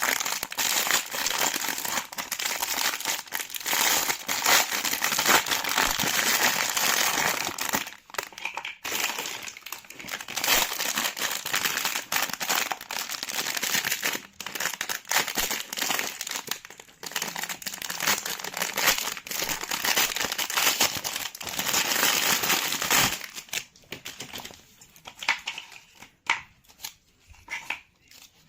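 Close-up, continuous gritty crunching and crinkling of kinetic sand clay being squished and cut by hand. It thins to scattered crackles near the end.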